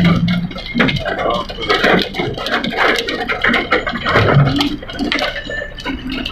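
Rain and hail pelting a car, a dense, irregular patter of sharp ticks over a steady rush.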